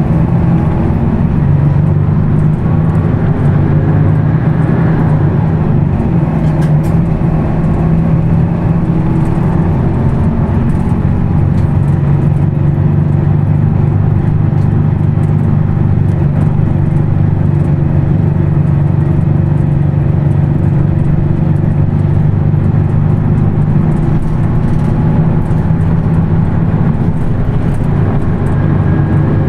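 Weichai WP6NG210E50 natural-gas engine of a Higer KLQ6935GC5 city bus running steadily, a deep, even drone with little change in pitch.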